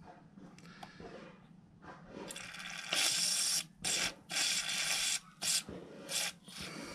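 Aerosol cleaner sprayed through a red extension straw in about five short hissing bursts, the first and longest starting about two seconds in. The cleaner is being run down the emulsion tube of a clogged plastic Briggs & Stratton carburetor to flush its jets.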